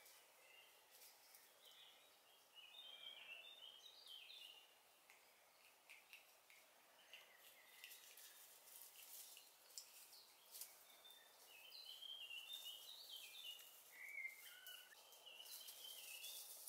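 Faint songbird singing two quick twittering phrases of short notes, one a couple of seconds in and a longer one in the second half, over quiet woodland background with faint crackles and rustles in dry leaf litter.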